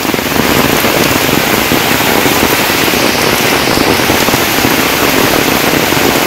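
Heavy downpour: a loud, steady rush of rain falling on standing floodwater and leaves, thick with the patter of individual drops.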